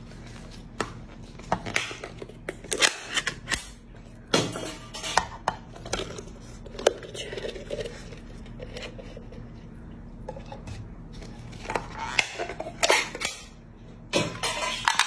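Dish handling: black plates being set down and shifted, and glass jars knocking and clinking against them as cooked shrimp and then small sea snails are tipped out onto the plates. It comes as a series of sharp knocks and clinks, with a lull in the middle.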